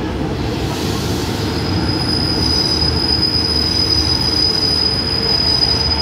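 Diesel railcar train arriving at a station platform, rumbling past as it slows to stop. A high, steady squeal from its brakes comes in about a second and a half in and holds.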